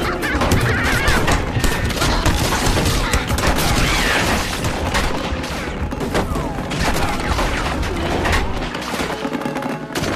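Cartoon soundtrack with a dense barrage of rapid gunshot-like bangs and crashes, loud and nearly continuous, with a few high squeaky cries mixed in.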